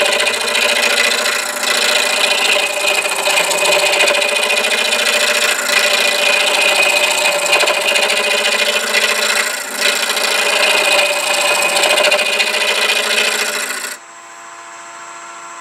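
Roughing gouge cutting a spinning wood blank on a wood lathe, a steady loud rasp of shavings being peeled off. About a second before the end the gouge is lifted and the rasp stops abruptly, leaving only the lathe running with a quieter steady hum.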